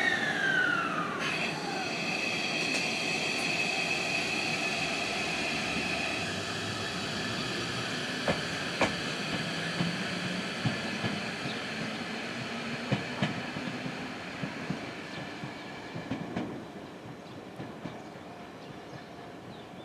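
A Tobu 500-series Revaty electric limited-express train running past. Its whine falls in pitch in the first second, and steady high tones continue for several seconds. Then the wheels click over rail joints several times as the train's sound fades.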